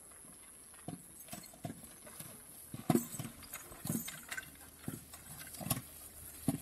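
Hooves of a horse walking while it pulls a loaded cart over a dirt track: irregular knocks and thuds. They begin about a second in and are loudest near the middle.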